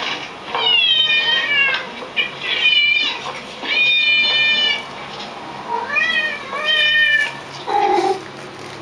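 Cats meowing: a series of about six high meows, most sliding down in pitch, with a lower, shorter meow near the end.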